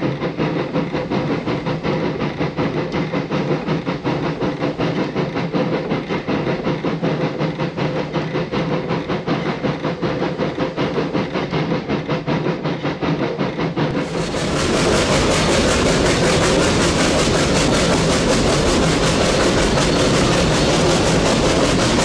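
Narrow-gauge steam train running at speed, with a rhythmic beat about four times a second. About two-thirds of the way through, the sound switches to a louder, steadier rush of wheels and carriage noise.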